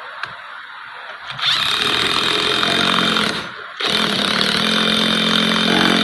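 Electric wrench running in two bursts of about two seconds each, with a brief pause between, driving the threaded nipple of a hydraulic hose fitting into its ferrule on the hose.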